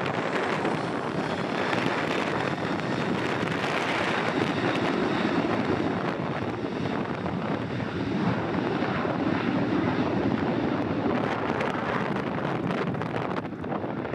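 Jet engines of a Boeing 737-700 running as it rolls along the runway, a steady rushing noise, with wind buffeting the microphone.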